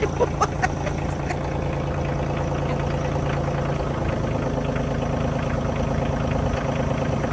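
A vehicle's engine idling steadily.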